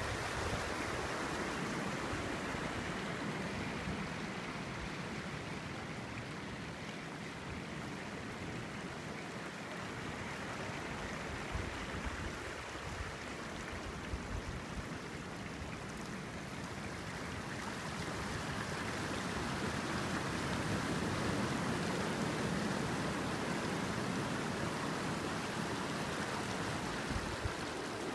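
Steady wash of sea water over the reef and through the shallow pools, growing a little louder past the middle.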